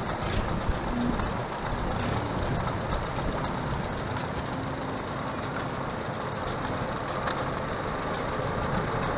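Antique tractor engine running steadily as the tractor drives slowly past at parade pace.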